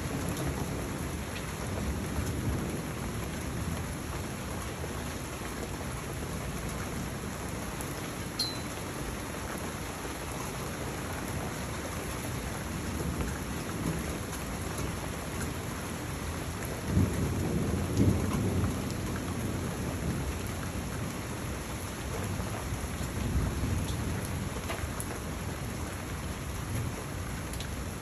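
Steady rain falling, with rolling thunder rumbling low at intervals; the loudest rumble comes a little past the middle.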